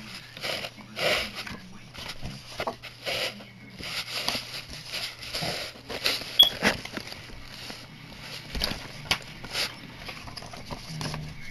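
Glossy art cards and cardboard from a boxed Blu-ray set being handled and shuffled: repeated rustles, scrapes and light taps, with one sharper click about six seconds in, over a steady low hum.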